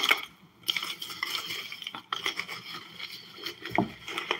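Plastic containers being shaken and handled for a name drawing: light, irregular rattling and rustling with scattered clicks, and a dull thump a little before the end.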